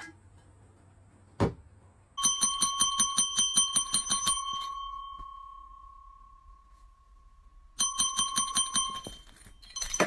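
A small bell rung in two rapid trills of about seven strikes a second, its tone ringing on and fading between them. A single knock comes shortly before the first trill.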